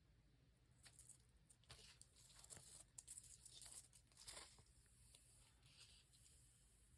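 Faint tearing and crinkling of paper or tape, in several short rasps between about one and four and a half seconds in, then quieter.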